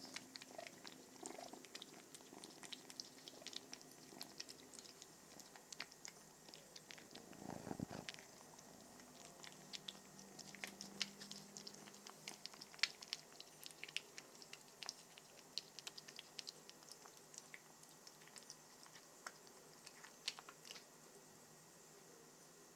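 Two-month-old ginger Maine Coon kitten eating, with quick wet chewing clicks throughout and a faint purr at times. A short muffled bump sounds about eight seconds in.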